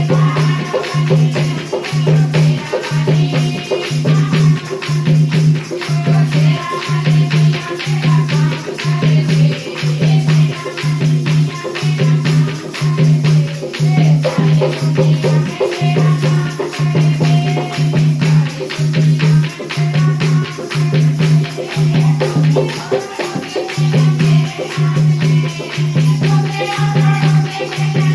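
Devotional bhajan music: a steady low drum beat, a little faster than one a second, with shaker-like rattle percussion and a wandering melody above it.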